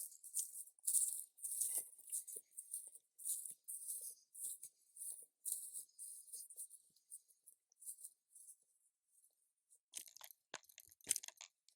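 Footsteps crunching on the ground at an irregular walking pace, fading away, then a few sharp knocks and clicks near the end.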